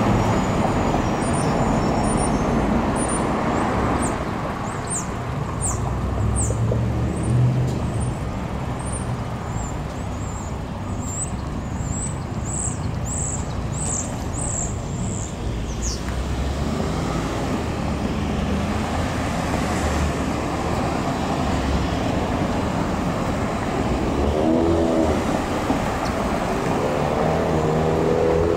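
Street traffic at a signalled intersection: a steady low rumble of car engines and tyres as vehicles wait and pass. Near the end a car's engine rises in pitch as it accelerates through the crossing.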